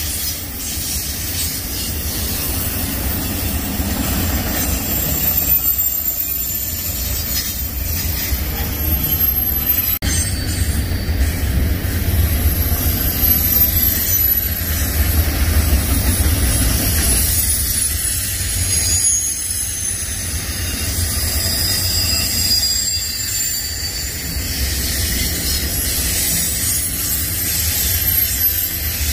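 Freight train rolling past: a steady low rumble of wheels and cars, with faint high squeals from the wheels that slowly slide down in pitch.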